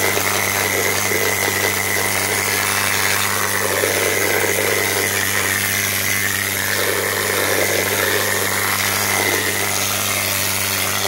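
Kobe air needle scaler running steadily, its needles hammering rust and scale off the rusted steel underbody of a Jeep Cherokee.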